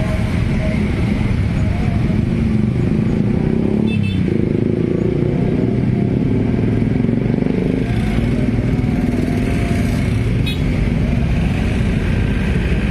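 Heavy traffic of motor scooters and cars moving slowly past at close range, a steady mix of small engines running and tyres on the road.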